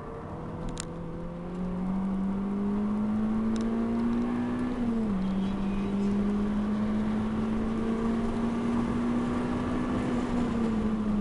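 Renault Clio RS 197's 2.0-litre four-cylinder engine heard from inside the cabin under acceleration on track, its pitch climbing slowly through the gears. It drops sharply twice, about five seconds in and near the end, as the driver shifts up, with tyre and road noise beneath.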